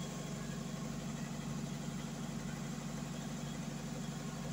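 Steady low hum of a running engine, even and unbroken.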